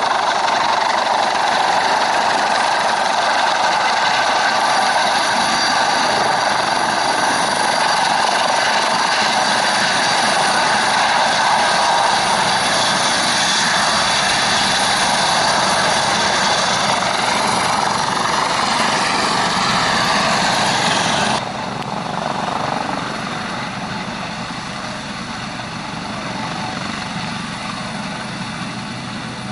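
Eurocopter AS565K2 Panther twin-turbine helicopter running loud and steady, a dense turbine whine over rotor noise. About twenty seconds in, the higher whine cuts off abruptly and the sound drops, then fades slowly.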